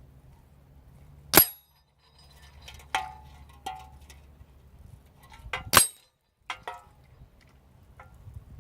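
Two sharp shots from an Umarex Gauntlet PCP air rifle, about four seconds apart. Between and after them come lighter metallic clicks and short pings, over a low steady rumble.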